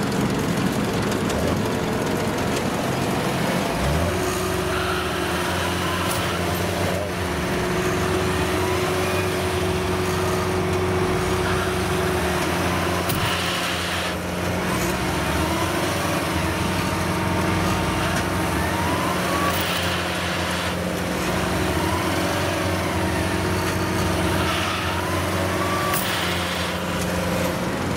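Diesel engine of rice-field farm machinery running steadily under load, with a few brief rising whines.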